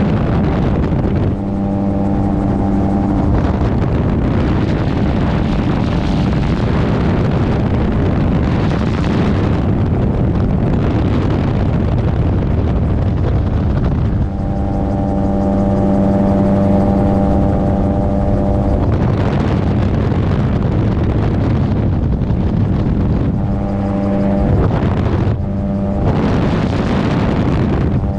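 Gyroplane in flight: its engine drones steadily at a constant pitch, and several times wind rushing over the microphone drowns it out.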